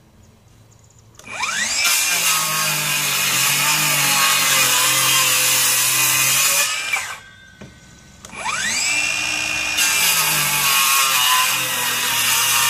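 Ridgid Gen5x brushless circular saw with its stock 24-tooth blade crosscutting pressure-treated 2x12 lumber. The motor whines up to speed about a second in, cuts for about five seconds and winds down. Then it spins up and cuts again in the second half.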